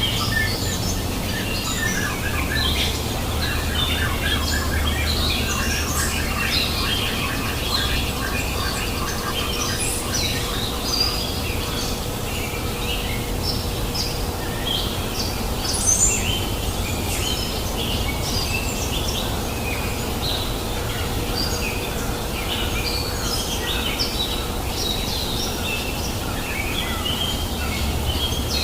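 Several wild birds chirping and whistling, with a fast run of repeated lower notes during the first several seconds, over the steady babbling of a river.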